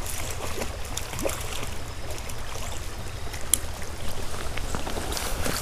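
Shallow creek water running, with scattered small clicks and splashes as a hooked trout is reeled in on an ultralight spinning reel, over a steady low rumble.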